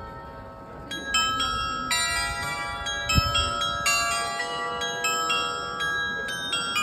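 The bells of the Hochzeitshaus glockenspiel play a tune: struck bell notes ring on and overlap, starting about a second in. A brief low thump comes about three seconds in.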